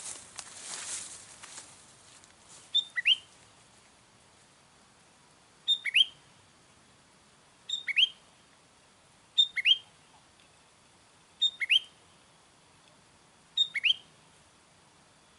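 Sooty-headed bulbul (kutilang) calling: a short call of a high note followed by a quick rising sweep, repeated six times at about two-second intervals. A hiss fades out over the first two seconds.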